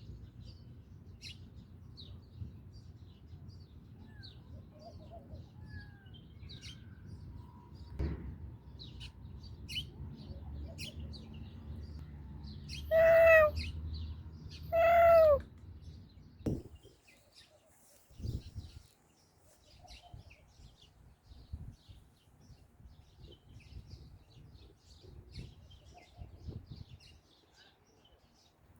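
A cat meowing loudly twice, each meow about a second long, around the middle. Faint bird chirps run throughout, with a low hum that stops soon after the meows.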